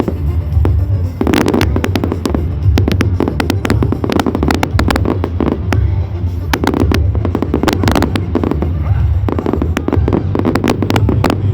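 Fireworks going off: many sharp bangs and crackles, some in rapid clusters, over a steady low rumble.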